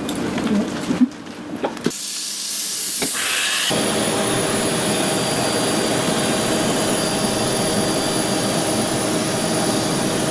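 A U-2 spy plane's jet engine running steadily: a loud, even rush with a thin high whine over it. It comes in abruptly about four seconds in, after a few clicks and a short hiss.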